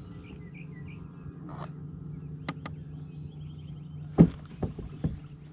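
Thumps and knocks against the boat, the loudest a sharp thump about four seconds in with a few lighter knocks after it, over a steady low hum. Faint small-bird chirps sound in the first half.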